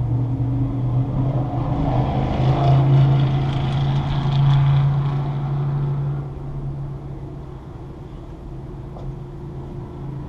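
Porsche Cayman S idling, heard from inside the cabin as a steady low hum. A louder engine sound swells and fades between about two and six seconds in.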